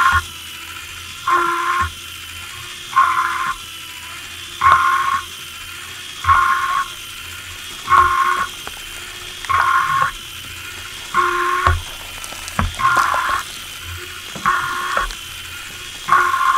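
Lego Technic walker robot's electric motor running with a steady whine, while its gears and leg linkage give a short burst of mechanical noise about every second and a half as the legs cycle.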